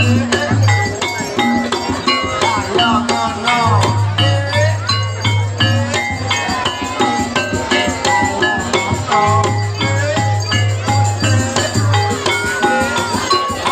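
Loud dance music with a steady beat, jingling rattles and short metallic notes over a low pulsing tone, with a bending melody line above.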